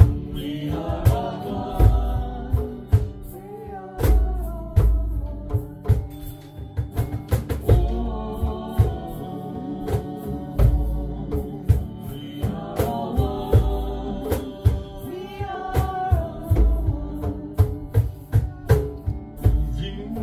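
Live acoustic music: singing over a strummed acoustic guitar, with a cajon slapped in a steady rhythm and its deep bass beats coming every couple of seconds.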